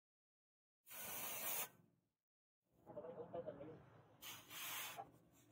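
A heated cleaver blade of truck leaf-spring steel is dipped into water and hisses in two short bursts, about a second in and again near the end. Between them the water sloshes and bubbles around the blade.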